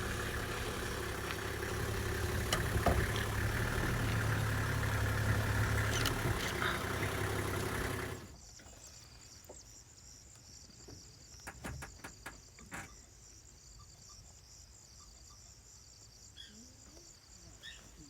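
A motor engine runs steadily for about eight seconds and then cuts off suddenly. After that, insects trill steadily at a high pitch, with a few sharp clicks.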